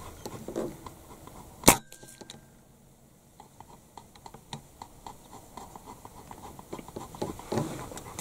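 A single rifle shot, a sharp crack about a second and a half in with a brief ringing after it. Faint scattered ticking and rustle fill the rest.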